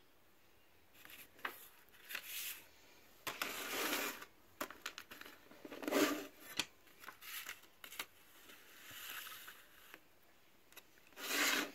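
A CD booklet and plastic jewel case being handled: the paper booklet rustles as it is closed and fitted into the case's front lid, among light plastic clicks and taps. The sounds come in short scattered bouts, the loudest about halfway.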